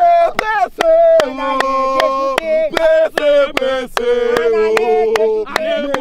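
Male voices singing a chant-like song with long held notes, over a fast, steady beat of sharp knocks.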